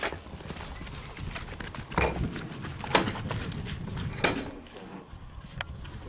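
Bulls moving about in a corral: a handful of sharp knocks, spread about a second apart, over a low rumble.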